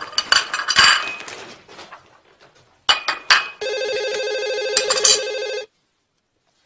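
Dishes clinking at a kitchen counter, then a telephone rings with a fluttering electronic tone for about two seconds, starting a little past halfway, and stops abruptly.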